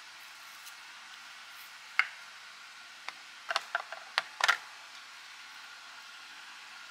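Kitchen knife slicing through a block of Spam and tapping the wooden cutting board in one sharp click about two seconds in. A quick cluster of light clicks and knocks follows a second or so later as the knife is laid on the board and the loaf is set into a small dish, over a steady low hiss.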